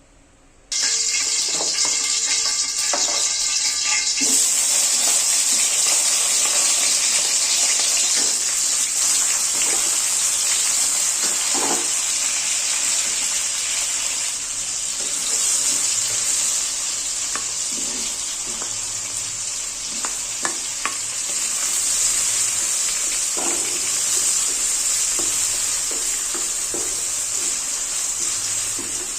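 Food sizzling in hot oil in a frying pan: a steady, loud hiss that starts suddenly about a second in, with occasional light clicks of a utensil against the pan.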